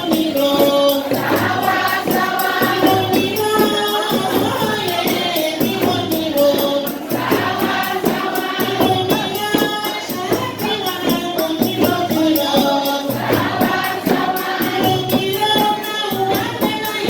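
Wedding music: a group of voices singing together over a fast, steady beat of jingling hand percussion like a tambourine.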